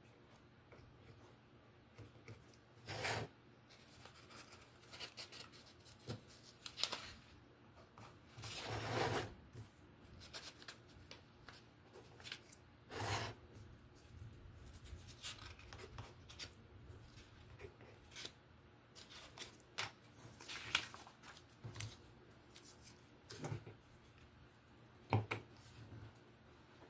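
Handling noises on a workbench: a pencil scratching marks on a wooden blank around a paper template, with rustling of the paper and masking tape. Short scratches and clicks come at irregular intervals, with a few longer rustles.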